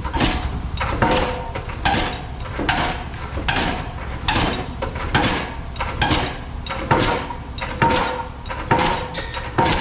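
Pile driver hammering a pile: about a dozen evenly spaced heavy blows, a little more than one a second, each with a short metallic ring.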